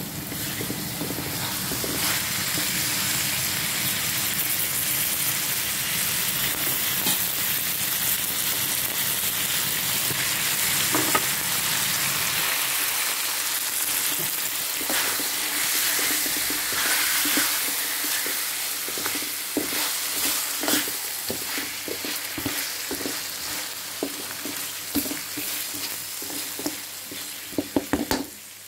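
Chicken pieces in soy sauce sizzling steadily in a hot metal wok, stirred with a spatula. From about two-thirds of the way in, the spatula's scrapes and knocks against the wok come more and more often, with a quick cluster near the end.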